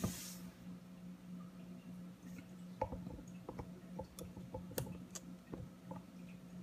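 Light handling noises of a new laptop and its packaging: a brief rustle at the start, then scattered small clicks and taps, over a faint steady low hum.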